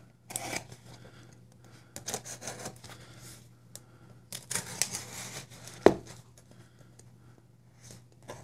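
Rustling and tearing of a shipping package being handled, in short scattered scrapes, with a sharp knock about six seconds in.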